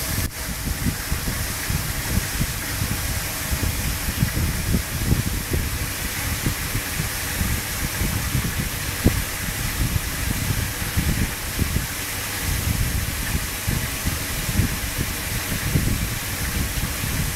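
Steady rush of water in a large koi pond: an even hiss over an uneven low rumble.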